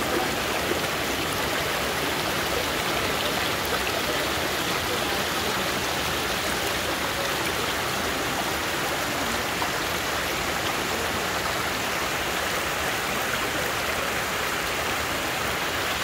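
Water of a rocky stream rushing over boulders and small cascades: a steady, even rush.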